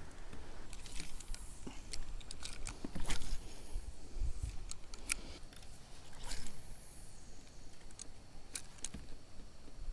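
Scattered light clicks and knocks of a fishing rod and reel being handled, with a couple of brief swishes over a low rumble.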